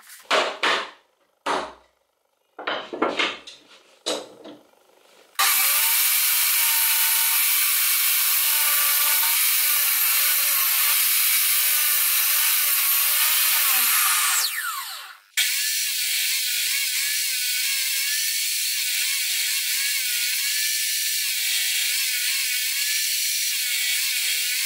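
A few knocks and clatters, then a benchtop table saw ripping pine boards, its pitch wavering as the wood is fed through. Around halfway it winds down with a falling pitch and stops, then starts abruptly, ripping another board.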